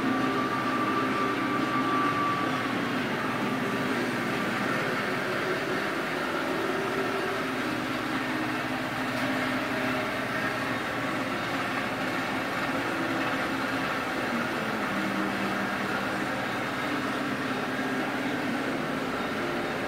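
Steady mechanical hum with a hiss, the constant background noise of a workshop, with a faint high whine in the first couple of seconds.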